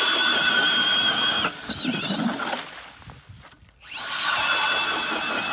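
Cordless drill turning a 180 mm ice auger through lake ice, its motor whining steadily. About one and a half seconds in the whine dips and wavers, then stops; just before four seconds it spins up again and runs steady until near the end.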